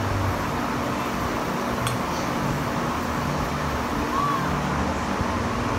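A handheld sparkler fizzing and crackling steadily as it burns down, with a sharp click about two seconds in.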